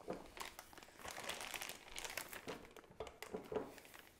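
Plastic piping bag crinkling and rustling irregularly as choux pastry batter is scooped into it with a spatula; faint.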